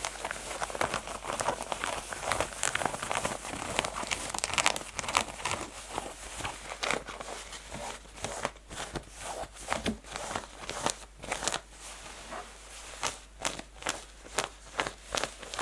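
Fingernails scratching rough denim jeans fabric fast and hard: a dense run of rasping strokes, turning to more separate, spaced scrapes about halfway through.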